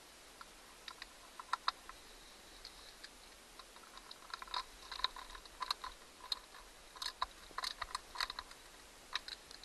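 Faint, irregular small clicks and ticks of a screwdriver turning small screws into a plastic clock housing and of the plastic parts being handled. The clicks come more thickly from about four seconds in.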